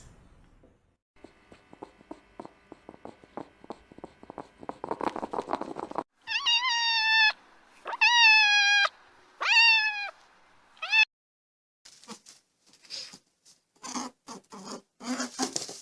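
A domestic cat meowing: four meows in a row, each falling in pitch, about a second apart. They follow a few seconds of rapid soft clicking, and several short scratchy sounds come after them.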